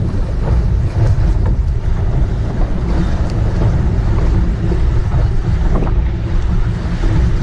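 Speedboat running flat out on the water: a steady low engine drone under wind buffeting the bow-mounted microphone, with the rush and slap of the hull through the chop.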